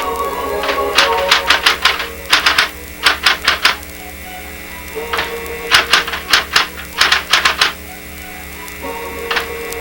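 Electric typewriter keys striking in quick runs of several keystrokes, with short pauses between runs, over a steady low hum.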